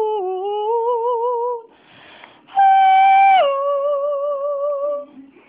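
A baby vocalizing in long, sung-like notes, as if pretending to sing. The first note slides down and wavers; after a short pause a second, higher note steps down in pitch and is held for about two seconds.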